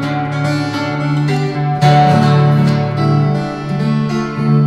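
Twelve-string acoustic guitar in open D major tuning played fingerstyle: picked notes ringing over a steady low bass note, with a louder, brighter strummed chord about two seconds in.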